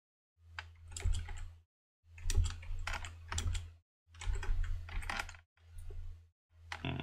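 Typing on a computer keyboard: quick runs of keystrokes in about five bursts with short pauses between them.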